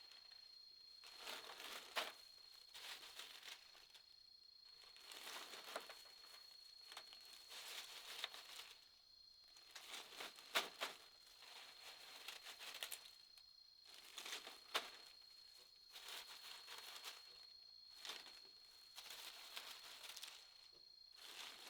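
Faint, irregular rustling and crinkling with occasional sharp clicks, over a steady high-pitched tone.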